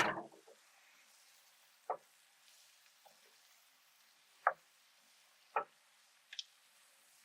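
Sautéed vegetables and bread for stuffing sizzling faintly in a sauté pan, with a short clatter at the very start and then a few single light knocks, about one every second, as the mix is stirred.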